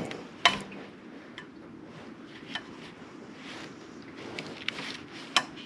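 Small parts being handled: a sharp click about half a second in, then a few lighter clicks and knocks, over a steady low background hum.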